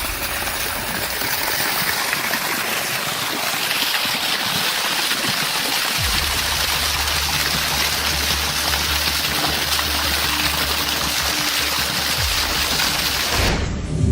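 Water gushing steadily out of a tree trunk and splashing onto the ground below, with a low rumble joining about six seconds in; it cuts off sharply near the end.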